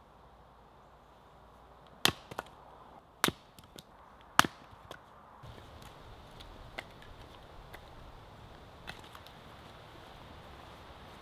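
Hatchet splitting kindling on a wooden chopping block: three sharp chops about a second apart, each followed by a smaller knock, the third the loudest. A few faint knocks of split sticks being handled follow.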